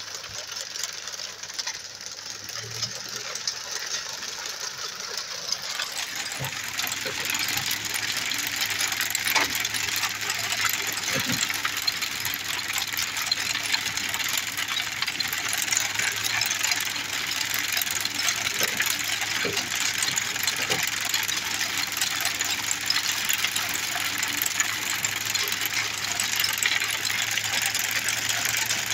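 The ground-driven mechanism of a 1920s McCormick Deering corn binder clattering as it cuts standing corn, over the steady hum of an engine running. The clatter gets louder about six seconds in.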